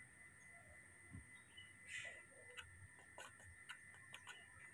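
Near silence with faint, scattered small clicks and smacks of spoon-feeding a baby monkey porridge, a few to a second from about the middle on, over a faint steady high whine.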